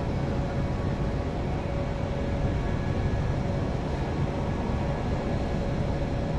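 Steady low background rumble with a faint steady hum.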